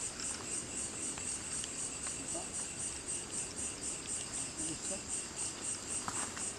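Night insects chirping steadily in a high-pitched pulsing trill, about four pulses a second.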